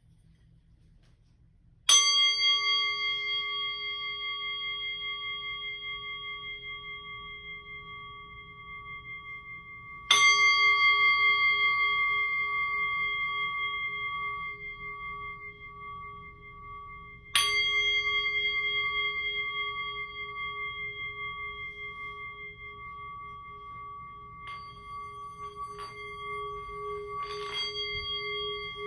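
Metal singing bowl struck three times, several seconds apart, each strike ringing out and slowly fading. Near the end the bowl is rubbed around its rim, so its low tone swells and wavers.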